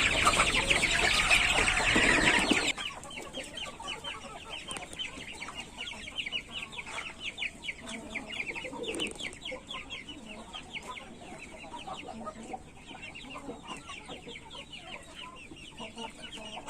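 Chickens clucking loudly for the first few seconds. The sound then drops suddenly to a steady chorus of rapid, high-pitched peeping, typical of chicks.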